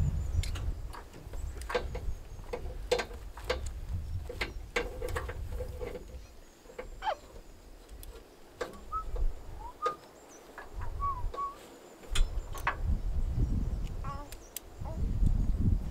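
Scattered knocks and clicks over a low rumble that comes and goes, with a few short bird chirps about nine to eleven seconds in.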